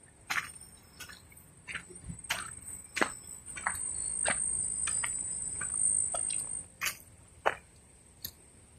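Irregular crunching footsteps on dry ground and debris, about one to two a second, over a steady high-pitched whine that grows louder midway.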